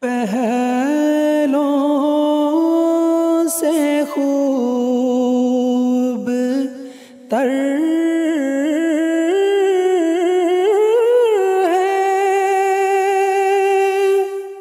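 A man singing an Urdu nazm unaccompanied, drawing out each word into long held notes with vibrato. The voice breaks off briefly about halfway through, then resumes.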